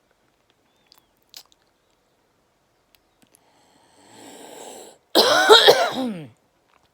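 A woman breathes in noisily, then gives a loud, harsh cough lasting about a second. It is the cough of her chest infection.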